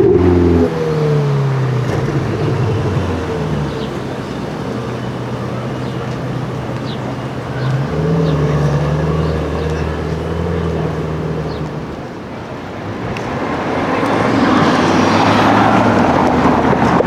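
Sports-car engines on the road: an engine tone drops in pitch about a second in, picks up again around eight seconds and holds, then a louder car's engine swells in over the last few seconds.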